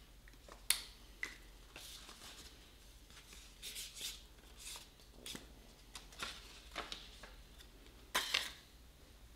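Quiet clicks and short rustles from a marker and small paper cards being handled. There is a sharp click just under a second in, and the loudest sound, a brief paper rustle, comes about eight seconds in.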